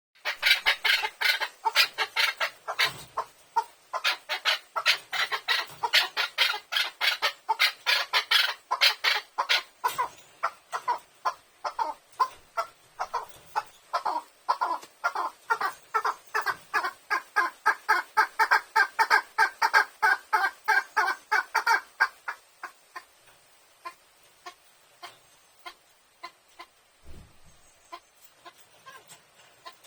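Chukar partridge calling: a long run of rapid, repeated clucking notes, about four a second, that drops to a few faint scattered notes about two-thirds of the way through.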